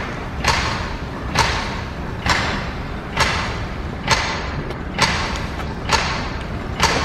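Sharp knocks about once a second, evenly spaced and echoing through a large arena, over a low rumble, as a rhythmic concert intro.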